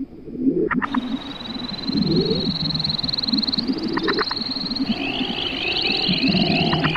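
Layered chorus of frog calls: low croaking throughout, a fast high trill that comes in about a second in, and a second, higher warbling chorus joining around five seconds. Short groups of three sharp clicks recur a few times.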